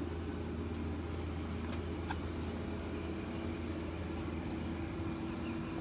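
A steady low mechanical hum with constant tones, with a couple of faint clicks about two seconds in.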